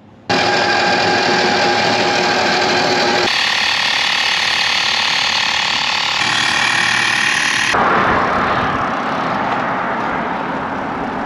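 A small motor running steadily in several short spliced clips, its pitch and tone changing abruptly every few seconds, then a rushing wind-like noise for the last few seconds.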